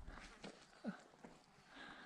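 Near silence, with a few faint scattered clicks and a short, faint falling squeak about a second in.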